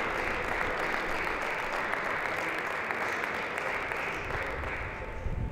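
Spectators applauding a point won in a table tennis match, the clapping dying away near the end.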